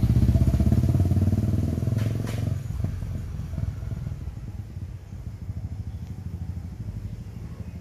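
Honda CRF250 Rally's single-cylinder engine as the motorcycle rides away, loudest for the first two and a half seconds and then fading into the distance.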